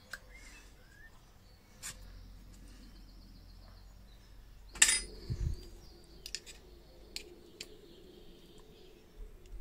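Small metal clicks and clacks as the thin metal parts of an old lamp's back plate are handled and pried at with pliers. The loudest is a sharper clack with a low thud about five seconds in, followed by a few lighter ticks.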